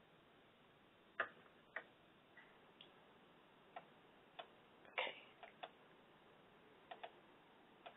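Near silence broken by about a dozen faint, irregular clicks and taps.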